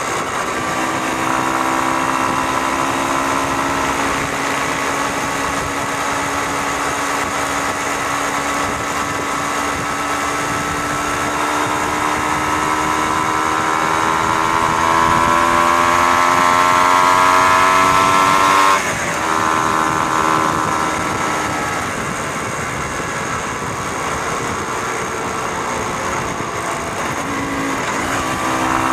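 Motorcycle engine running at road speed on the move, with wind and road noise. Its pitch climbs steadily for several seconds, breaks off suddenly and drops in loudness about two-thirds of the way through, then holds steady and rises again near the end.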